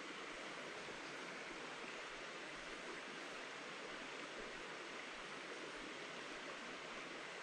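Steady, even rush of a small woodland creek flowing, unchanging throughout.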